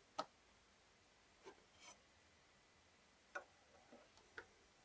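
Faint, scattered clicks and a brief scrape of small metal parts inside a GU mortise lock case as they are fitted together during reassembly. About five short clicks spread over a few seconds, with near silence between them.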